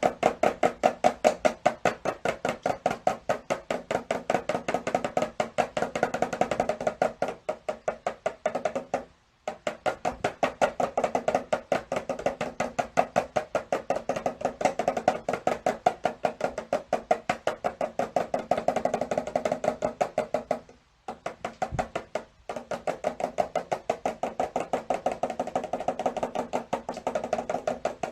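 Rapid, even knocking or tapping with a hollow, wooden ring, several strokes a second. It breaks off briefly about a third of the way in and twice more near three quarters through.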